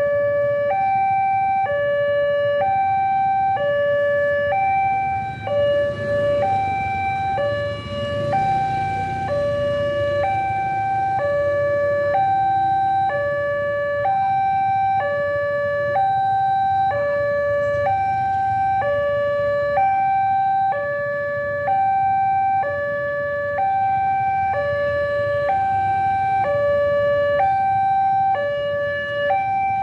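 Railway level-crossing warning alarm sounding continuously, an electronic two-tone signal alternating between a lower and a higher tone about once a second: the warning that a train is approaching and traffic must stop.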